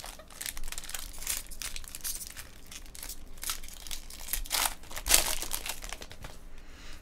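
Foil wrapper of a Bowman Draft jumbo pack of trading cards being crinkled and torn open by hand, a run of rustling and tearing that is loudest about five seconds in.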